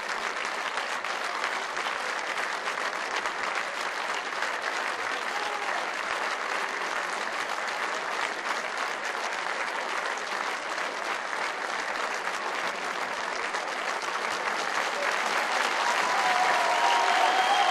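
Stadium crowd applauding, a steady dense clapping that grows louder over the last few seconds.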